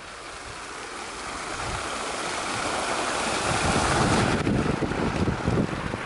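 Fountain jets splashing steadily into a stone basin, the spray growing louder over the first few seconds. Wind buffets the microphone from about halfway on.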